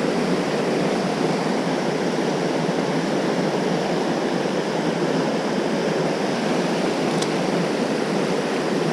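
Mountain river rapids rushing over rocks close by, a steady rush of whitewater with the river running high.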